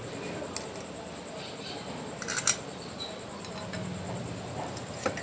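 A few light clicks and scrapes of kitchen utensils against dishes while bread is buttered and the filling is handled, the loudest clatter about halfway through.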